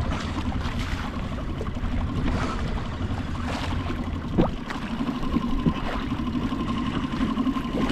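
Wind rushing over the microphone and choppy sea water moving around a fishing kayak, with a short rising squeak about halfway through.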